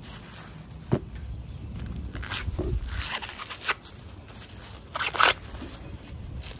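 Husks being torn and peeled off fresh ears of corn by hand: rustling, crackling rips with a sharp snap about a second in and the loudest tear about five seconds in.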